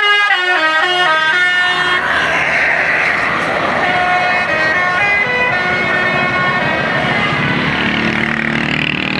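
A bus's telolet musical horn playing a quick melody of short notes stepping down in pitch, then more held notes a few seconds later over a rushing noise, with the bus engine running underneath.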